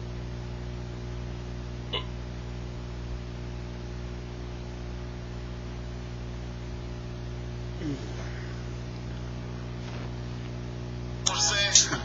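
Steady low electrical hum, with a single click about two seconds in and a short sound falling in pitch near eight seconds. Louder clattering sounds start just before the end.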